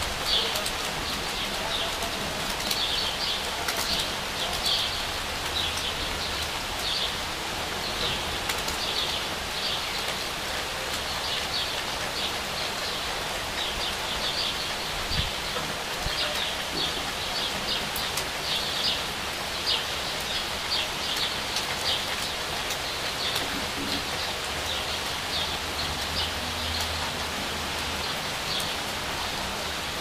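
Steady rain falling, with birds chirping in short bursts every second or two over it.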